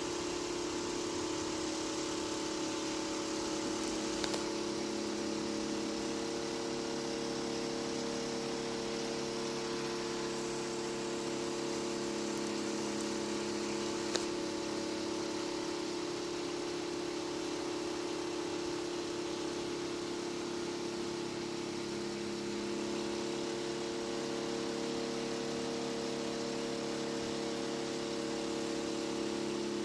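Steady mechanical hum made of several level tones over a background hiss, as from a motor or fan running. Two faint clicks, about four and fourteen seconds in.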